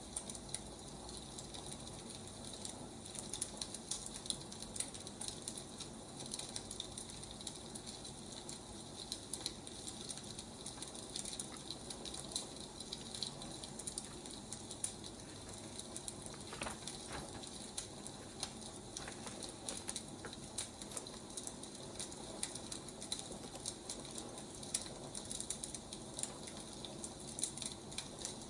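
Wood fire crackling, with many small irregular pops over a steady hiss.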